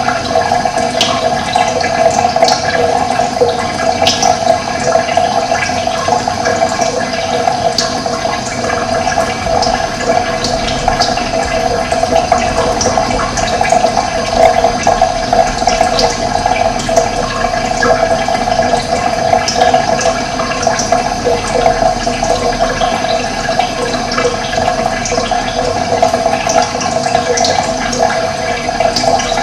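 Steady running water, with short high bird chirps scattered through it.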